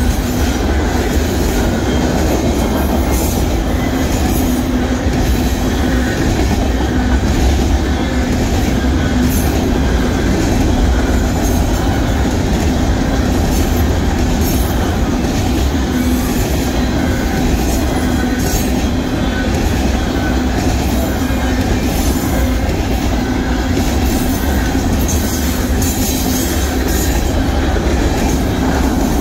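Union Pacific mixed freight train's cars rolling steadily past, a continuous rumble and clatter of steel wheels on the rails with a steady low tone running through it.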